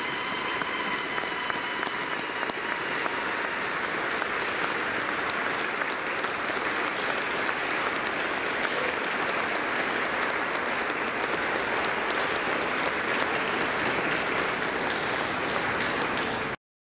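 Congregation applauding, many people clapping steadily, cutting off suddenly near the end.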